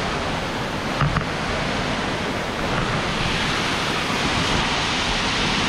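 Steady rushing of a waterfall, with a short knock about a second in.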